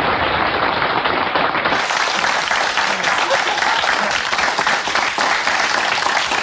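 Studio audience applauding steadily; about two seconds in the sound turns brighter, as a new recording of the applause begins.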